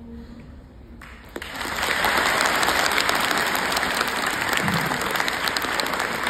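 The last acoustic guitar note fades out faintly, then an audience breaks into applause about a second and a half in, many hands clapping steadily.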